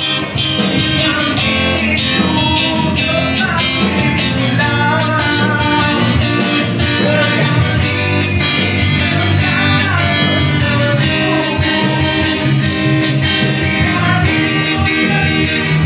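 Live jam: a man singing into a microphone over strummed acoustic guitar and electric bass, the voice amplified through a small PA speaker.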